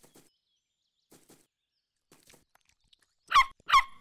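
Faint soft footsteps, then two short, sharp yelps from a cartoon animal about a third of a second apart near the end.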